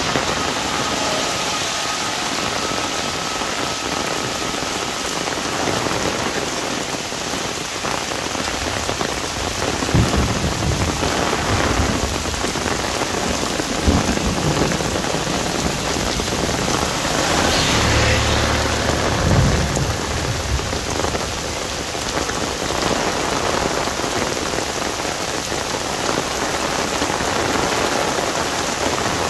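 Heavy rain falling steadily on an umbrella overhead, with low rumbles of thunder swelling twice around the middle.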